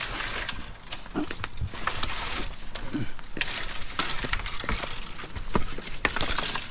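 Dry branches and twigs rustling and crackling as firewood is pulled from a brush pile and dragged over the ground, with many irregular sharp snaps.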